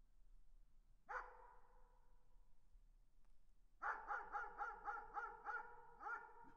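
A distant dog barking: a single bark about a second in, then a quick run of about eight barks, about four a second, and one more bark after a short pause. Each bark trails off in an echo.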